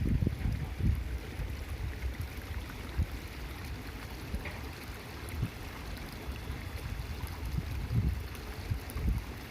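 Wind buffeting the microphone outdoors: an uneven low rumble that rises and falls in gusts, over a faint steady hiss.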